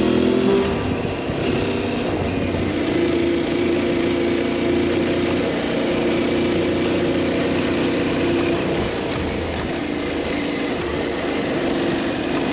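Adventure motorcycle engine running at a steady pace while riding, with wind and road noise over it.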